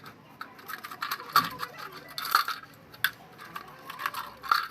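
Small metal objects clinking and clicking: an irregular run of light clinks, with several sharper ones.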